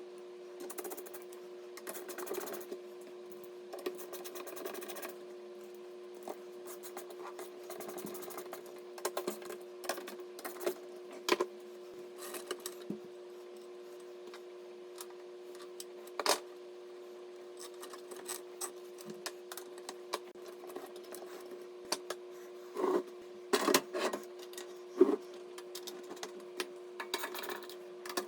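Scattered clicks, taps and light rattles of small hardware being handled, over a steady low hum. A cluster of clicks comes about a third of the way in, and another near the end.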